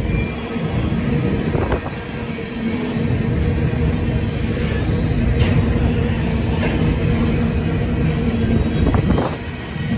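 Grain hopper cars of a Canadian Pacific freight train rolling past, a steady low rumble with a faint hum. A few sharp clicks from the wheels come through along the way.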